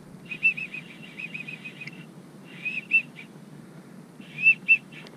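Wigeon whistle call blown in a quick run of short, arching whistled notes, then two short pairs of notes, imitating the whistling of wigeon drakes to draw ducks to the decoys.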